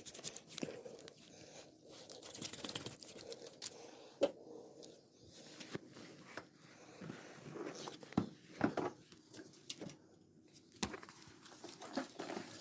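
Barber's massage on head and neck: irregular rubbing, scratching and rustling over skin and hair, with scattered sharp knocks and clicks, a cluster of them around the middle.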